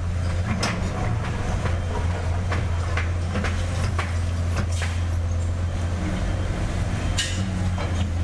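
Heavy equipment's diesel engine running steadily with a low hum, with several sharp knocks and clanks scattered through.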